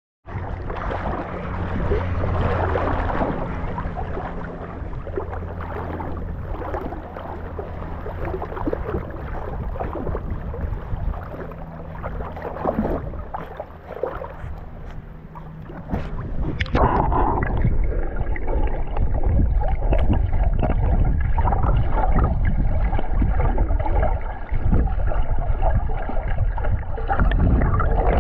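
Water lapping and sloshing against an action camera held at the water's surface, with a low steady hum under it. A little past halfway the sound changes to a dense, muffled underwater rumble as the camera goes below the surface.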